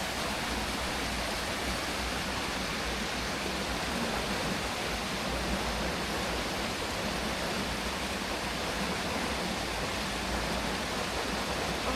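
A river rushing steadily over rocks, an even, unbroken sound of flowing water.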